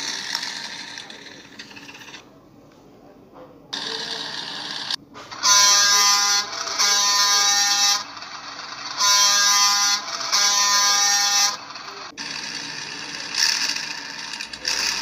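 A horn-like buzzing tone sounding four times, in two pairs of roughly one-second blasts, with stretches of hiss between them.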